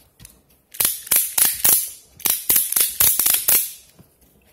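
Keeper 1¼-inch ratchet strap being ratcheted tight by pumping its handle: two quick runs of sharp clicks as the ratchet catches on the gear teeth.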